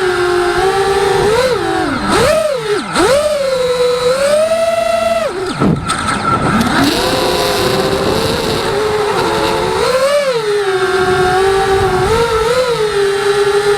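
Eachine Wizard FPV racing quadcopter's brushless Emax motors whining, the pitch rising and falling with the throttle, with a few sharp dives and swoops in pitch as the throttle is chopped and punched again.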